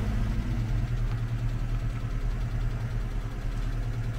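GAZ-24 Volga's engine idling steadily, a low even hum.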